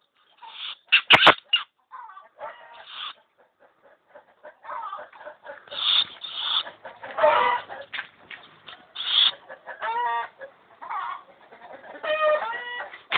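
Animal calls: a series of short, clucking calls, with quick chattering runs about ten seconds in and again near the end.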